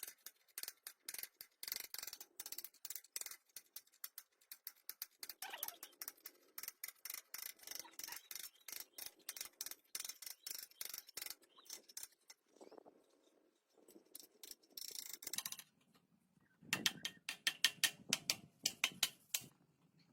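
Runs of rapid, sharp mechanical clicks from hand-tool work, with a quieter lull about two-thirds of the way through and a final flurry of clicks near the end.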